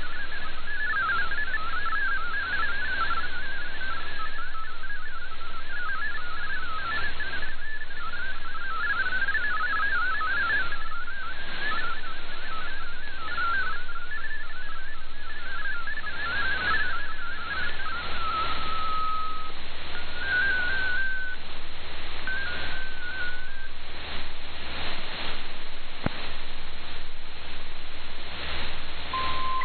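Shortwave digital-mode data broadcast heard through an SDR receiver: the fast warbling tones of MFSK32 text over steady hiss and static. About two-thirds through the warble stops, a short steady tone follows, then two brief tone bursts (RSID mode identifiers), and right at the end a wider warble of MFSK64 data begins.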